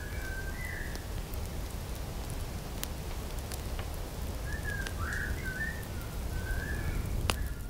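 Small campfire crackling with scattered sharp pops over a steady low rumble, with short whistled bird calls at the start and again through the second half.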